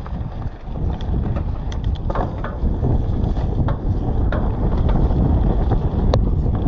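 Wind buffeting the microphone and tyre rumble as a mountain bike rides down a trail, with scattered clicks and rattles from the bike; the rushing grows slightly louder as speed builds.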